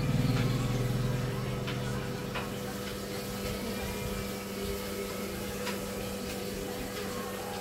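Steady low background hum with a low rumble that fades over the first two seconds, and a few faint clicks.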